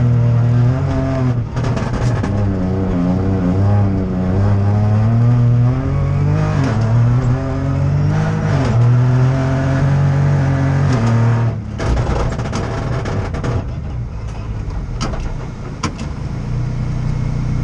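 Opel Corsa Rally4's turbocharged three-cylinder engine heard from inside the cabin, pulling hard with its pitch rising and falling through the gears. About twelve seconds in the throttle comes off and the engine drops to a lower, quieter running with a few sharp clicks as the car slows.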